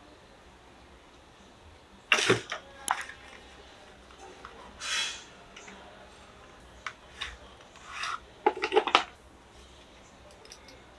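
Handling sounds from unpacking a keyboard and its box: a sharp knock with a short scrape about two seconds in, a brief rubbing slide midway, and a quick run of clicks and knocks near the end.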